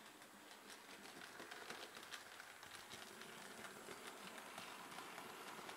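Faint running of a Bachmann GWR 4500 Prairie tank model locomotive and its coaches on model railway track. It is a soft rumble with many small clicks from the wheels on the rails, growing louder from about a second in as the train comes past.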